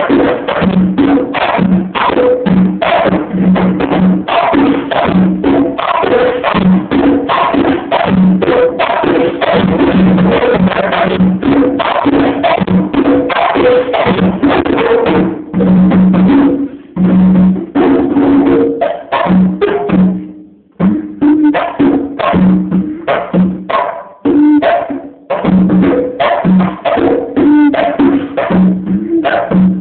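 Conga drums played by hand in a fast, busy rhythm, with ringing open tones at a few different pitches. The playing breaks off briefly a few times in the second half.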